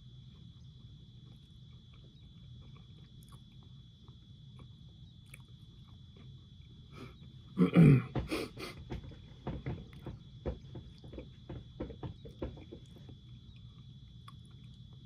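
A man eating fish doused in hot pepper sauce: faint chewing, then about halfway through a sudden loud throat noise, followed by several seconds of short mouth clicks and sniffs as the heat of the sauce sets in.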